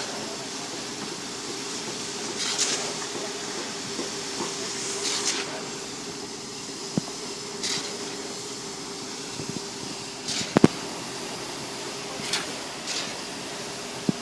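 Concrete pump running steadily with a constant hum, a short hiss about every two and a half seconds as it cycles, and one sharp knock about ten seconds in.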